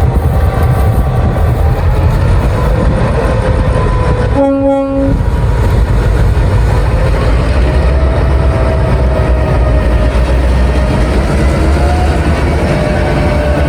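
Diesel freight train running by with a heavy, steady engine rumble and wavering mechanical whine, broken about four and a half seconds in by one short horn note.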